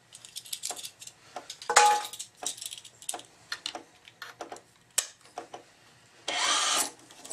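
Metal racket-stringing clamps being handled on the strings: scattered clicks and clinks, one about two seconds in that rings briefly, and a short scraping rasp about six seconds in.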